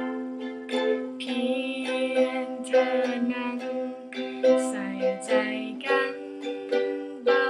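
Ukulele strummed in a down, down, up, up, down pattern, playing chords for two bars each.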